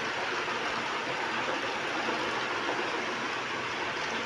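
Battery-powered toy train running around a plastic track: a steady whir of its small electric motor and wheels on the plastic rails.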